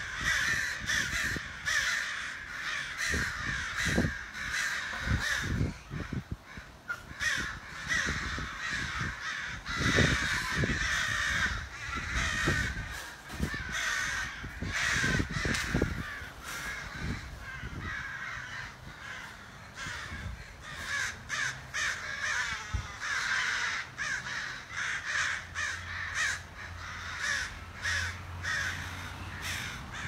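A large flock of birds calling continuously, many calls overlapping without a break.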